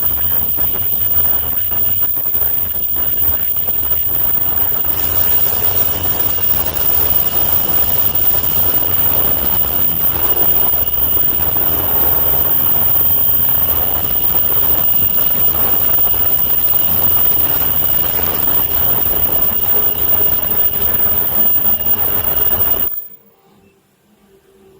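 Automatic face-mask making machine with elastic earloop welding running at speed: a dense, rapid mechanical clatter under a steady high-pitched whine. It cuts off suddenly near the end.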